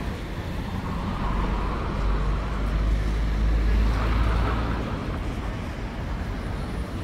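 Street traffic: a car passes close by, its engine and tyre noise swelling in the middle and then fading, over a steady background of city traffic.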